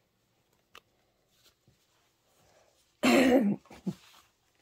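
A woman clears her throat with one short, loud cough about three seconds in, after near silence. A faint click comes about a second in.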